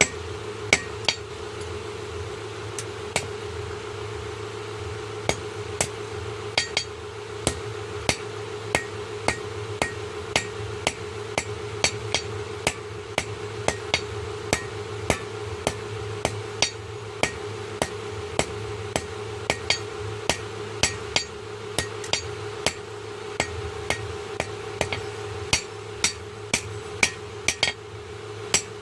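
Blacksmith's hammer striking steel on an anvil while forging a khurpi blade: sharp, ringing blows at an uneven pace of one or two a second, with a short pause about three to five seconds in. A steady low hum runs underneath.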